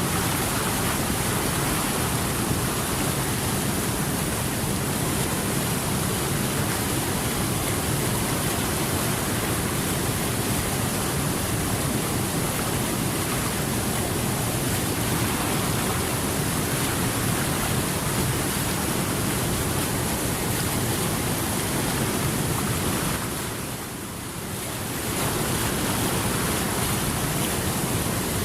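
Steady rushing water, a dense even wash with no separate splashes, that dips briefly in level near the end before resuming.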